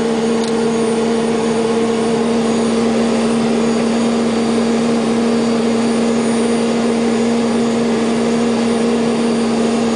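Aérospatiale Gazelle helicopter's Turbomeca Astazou turboshaft engine running steadily after start-up, heard from the cockpit: a constant hum with its overtone over an even rushing noise, with no change in pitch.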